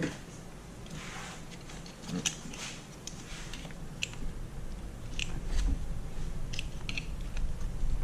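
Scattered light metallic clicks and taps of hand tools and parts on a limited-slip differential being taken apart, with low handling bumps growing more frequent in the second half.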